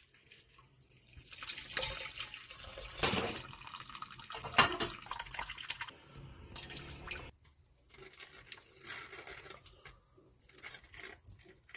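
Milk curds and hot whey poured from a pot into cheesecloth, then whey splashing and dripping into a stainless-steel sink as the cloth is wrung out. The liquid sounds fade after about seven seconds.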